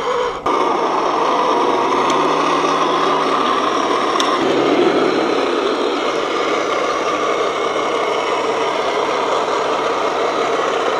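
Radio-controlled model tank running over gravel and shallow water, its drive mechanism making a steady mechanical drone.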